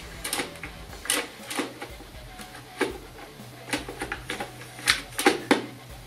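A 3.5-inch hard drive being pushed into the bay of a plastic hard-drive docking station: a series of hard clicks and knocks, the loudest few coming close together near the end as the drive seats.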